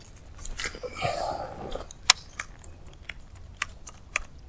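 Fishing rod and reel clicking and ticking while a topwater stick-bait lure is twitched back across the water, a few sharp clicks a second, with a short rustle about a second in.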